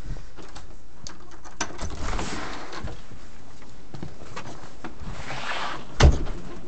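A door being opened to go outside: handling clicks and noise, with a loud thump about six seconds in.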